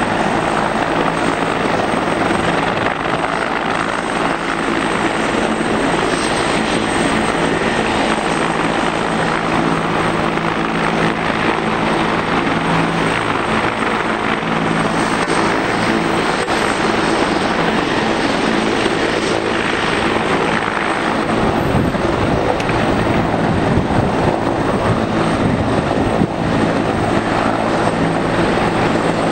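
Firefighting helicopter running on the ground close by: a loud, steady turbine and rotor noise, with a low rapid pulsing setting in about two-thirds of the way through.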